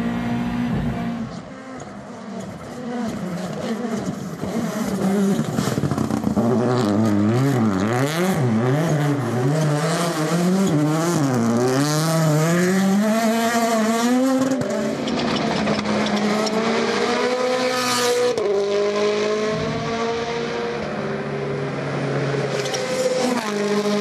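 Rally1 rally cars' turbocharged four-cylinder engines running flat out on tarmac, the engine note rising and falling quickly through gear changes and braking, then a car passing by.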